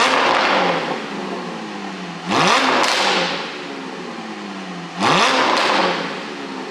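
Porsche 718 4.0 GTS's flat-six engine through an iPE exhaust, revved sharply three times about two and a half seconds apart. Each time the pitch shoots up, then the revs fall back slowly with crackling from the pop tune.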